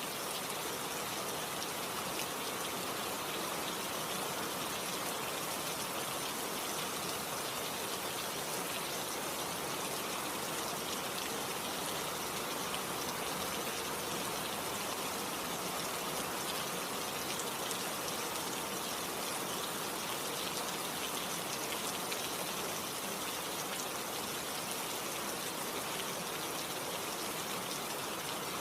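Steady rain falling, an even hiss with fine pattering of drops.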